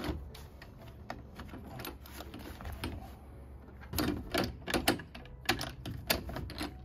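Scattered clicks and taps of a Magma SUP/kayak rack's plastic rail clamp and its bolt being handled and fitted onto a stainless steel bow rail. The taps come thicker and louder from about four seconds in.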